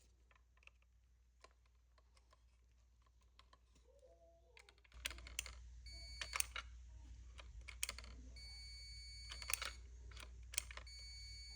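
Multimeter on its continuity setting beeping in three stretches of a second or two, beginning about six seconds in, among small clicks of the refrigerator dispenser's micro switch and the test probes. The beep shows the switch closing: the micro switch is good.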